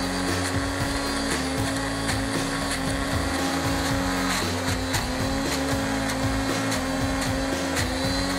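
Small electric personal blender's motor running steadily as it grinds red chilies, shallots, garlic, candlenuts and galangal with a little oil into a spice paste. Its hum steps slightly in pitch a few times as the load changes, with scattered clicks of pieces against the jar.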